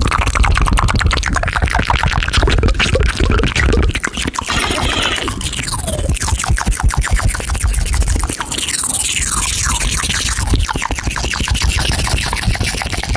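Dense electronic sound-effect mix over music: rapid clicking and scratching with several falling pitch sweeps and a heavy bass layer.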